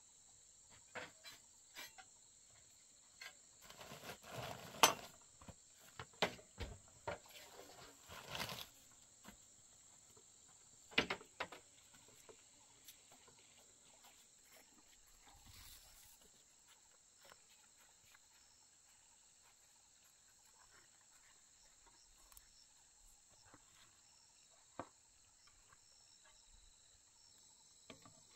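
Steady high-pitched chirring of insects, with scattered clicks and rustles in the foreground, the loudest about five and eleven seconds in.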